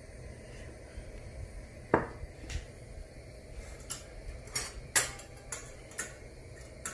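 Scattered sharp clicks and clinks of pots, pans and utensils, about eight in several seconds, over a low steady rumble.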